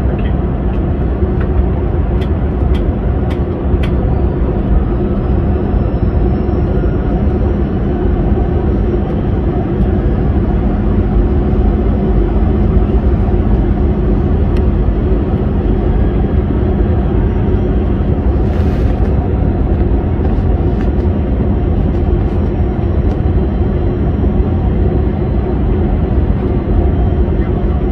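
Jet airliner cabin noise heard from a passenger seat: a loud, steady drone of engines and rushing air during the approach. There are a few faint clicks in the first few seconds and a brief hiss about 19 seconds in.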